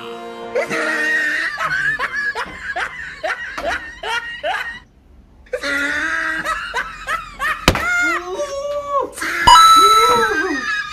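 Hearty laughter in quick rhythmic bursts, with a sharp smack of a rubber slipper about two-thirds of the way in and a louder smack near the end.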